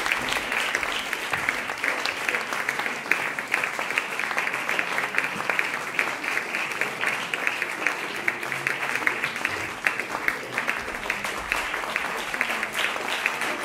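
Concert audience applauding: dense, steady clapping.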